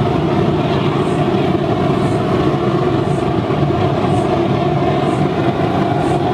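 Waste-vegetable-oil burner with a forced-air blower running steadily, a constant loud rush of flame and fan firing into a brick-lined drum furnace.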